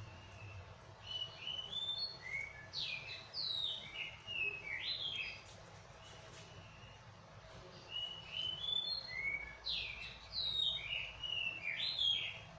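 A songbird singing in two bouts of quick chirping notes that sweep up and down in pitch, the second bout starting about eight seconds in.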